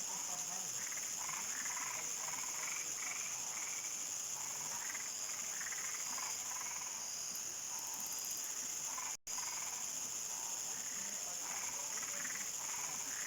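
Nightfall insect and frog chorus: a steady high-pitched cricket trill with many frogs calling on top in short, irregular notes. The sound cuts out for an instant about nine seconds in.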